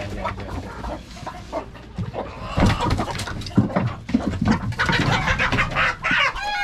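Chickens clucking and squawking in a coop, louder and busier from about two and a half seconds in.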